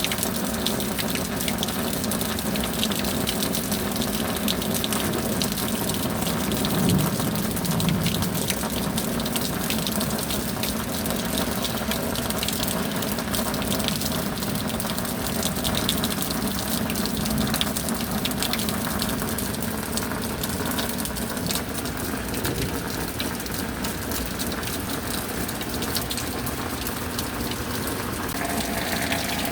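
Rain falling steadily, a continuous rush of water with no pauses.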